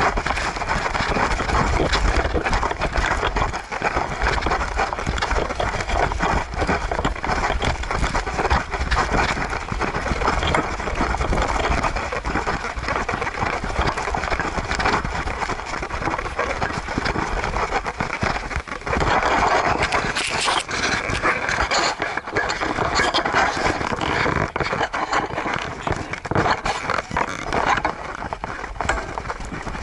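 Continuous rustling, scraping and low buffeting from a camera worn on a Siberian husky's back: the dog's fur and movement rub against the microphone, with wind rumbling on it, as the dog walks.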